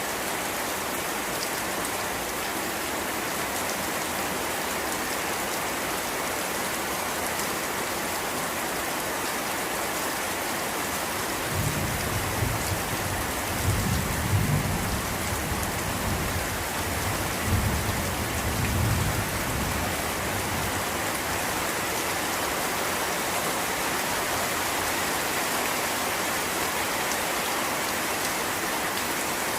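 Steady rain falling. Near the middle, a low roll of thunder rumbles in a few swells for about eight seconds, then fades back into the rain.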